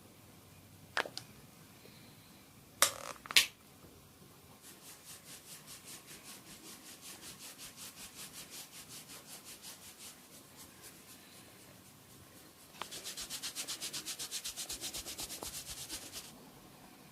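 A barber's fingers scratching and rubbing a scalp in quick, even strokes, several a second: first a softer run, then a louder and faster run near the end. A few sharp clicks come before the scratching, in the first few seconds.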